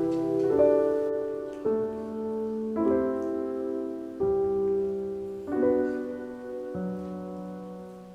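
Soft background piano music, slow chords struck about every second and a quarter, each left to fade before the next.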